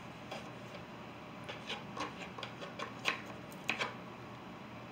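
Palette knife dabbing and scraping oil paint onto a stretched canvas: irregular soft taps and short scrapes, the loudest about three seconds in.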